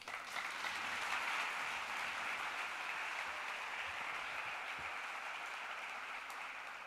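Audience applauding, steady at first and slowly dying away near the end.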